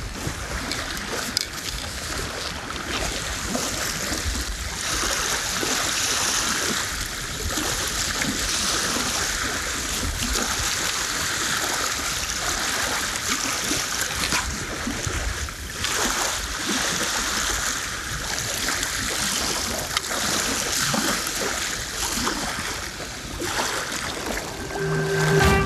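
Waves on a storm-blown reservoir splashing and lapping in continual swells, with wind rumbling on the microphone. Music comes in just before the end.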